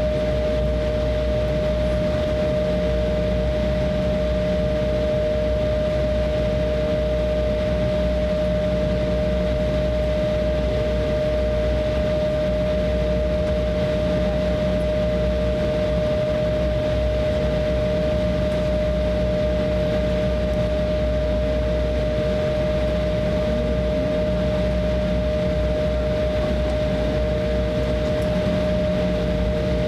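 Cabin noise of an Embraer E170 taxiing, heard from a window seat: its General Electric CF34 turbofans at taxi power and the cabin air system give a steady hum and rush of air with a steady whine over it.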